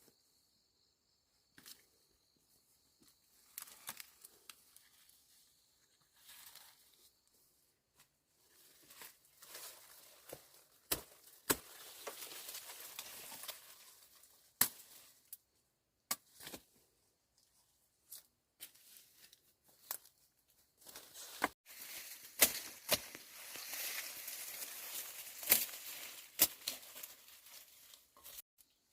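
Leafy green vegetables being picked by hand: bursts of rustling, crinkling leaves with sharp snaps and tearing as stems are broken off, in two longer spells.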